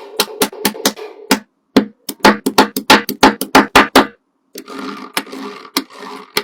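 A quick run of sharp clicks and knocks, about three to four a second, broken by two short silences. In the last two seconds it gives way to a softer continuous rustling sound with only an occasional click.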